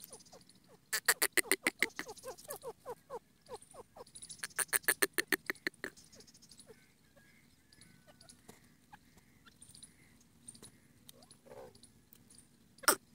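Grey francolin (pateel teetar / bhora titur) calling: two bursts of rapid harsh notes, about a second in and again about four seconds in, each trailing into a string of lower, falling notes. Softer chirps come between the bursts, and two loud sharp notes come near the end.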